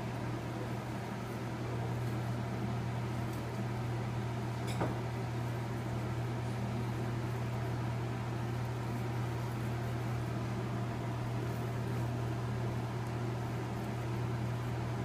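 Steady low mechanical hum with room noise, and a single faint click nearly five seconds in.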